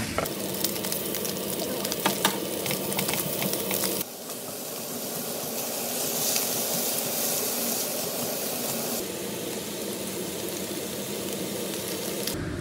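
Ground pork sizzling in a nonstick frying pan, stirred with a spatula, with light scraping ticks over the first few seconds. About four seconds in the sizzle cuts abruptly to a brighter, hissier frying as tomato and onion cook with the pork.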